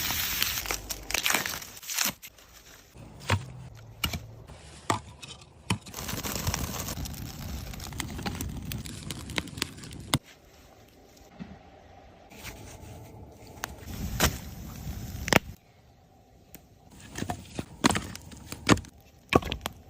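Close handling noises: irregular scraping, tearing and crinkling with many sharp clicks and knocks, easing off into quieter stretches about ten seconds in and again about sixteen seconds in.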